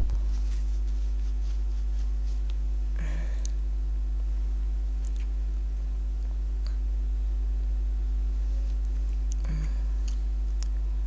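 Steady low electrical hum on the recording, with a few faint clicks scattered through it.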